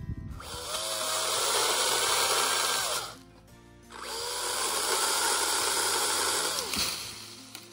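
Makita DUC405 cordless 36-volt electric chainsaw cutting into the trunk of a rosewood tree, an Australian hardwood, in two runs of about three seconds each with a short break between. Each run has a motor whine that climbs as the saw spins up and drops away as it is let off. Soft background music plays underneath.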